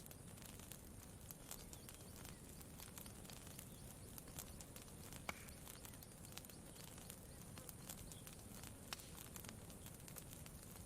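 Campfire crackling faintly with irregular small pops and one sharper pop about halfway through, over a low steady rumble.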